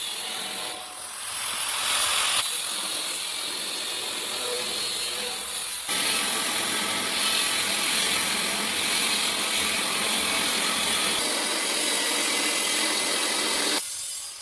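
Angle grinder with a cut-off wheel cutting through sheet metal: a loud, steady grinding that dips briefly about a second in and stops shortly before the end.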